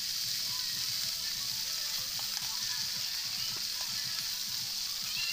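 Whole fish sizzling steadily as they fry in a hot wok.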